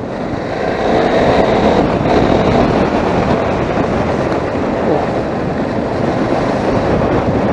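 Hyosung GT650R V-twin motorcycle under way, its engine mixed with wind rush on the rider's microphone, growing louder over the first second.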